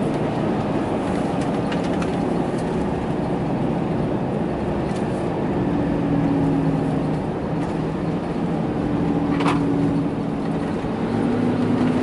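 Dodge Ram pickup driving, heard from inside the cab: a steady drone of engine and tyre noise, with a few light clicks. No grinding comes from the front axle, which the owner credits to a new track bar.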